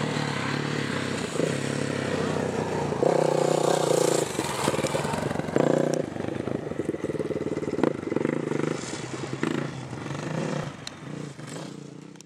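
450cc four-stroke motocross bike riding a dirt track, its engine revving in several hard surges as the throttle is opened and closed; the sound fades away near the end.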